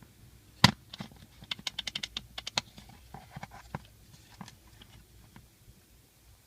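One sharp knock about half a second in, then a quick irregular run of light clicks and taps, thinning out to a few scattered taps.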